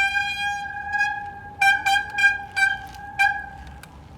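Hydraulic bicycle disc brake (X-Spark HD-M220 on a 160 mm rotor) squealing under light lever pressure: one long high squeal that fades, then four or five short squeals in quick succession. The owner suspects oil has got onto the pads.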